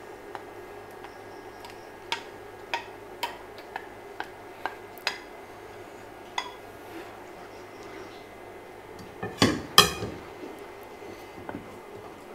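Wooden spatula scraping and tapping against a ceramic bowl and the cooking pan as mango pulp is scraped into a pudding: a string of separate sharp clicks, then two louder knocks about nine and a half seconds in.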